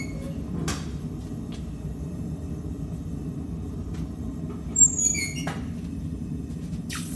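Steady low roar of a forge burner. About five seconds in, a sharp metal clank rings briefly, and near the end a loud hiss starts.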